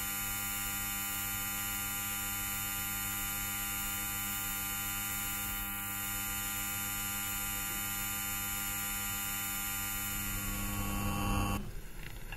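A steady electrical hum with a buzzing edge, starting abruptly and cutting off shortly before the end.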